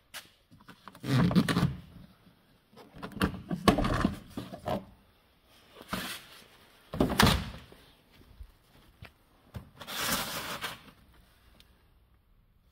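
Car door and its trim being handled: about five short bursts of thunks and scraping rustles, separated by short pauses.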